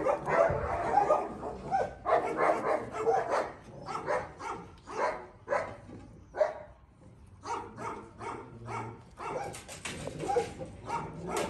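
Dogs barking over and over in short barks, which come thickest in the first few seconds and more spaced out after that.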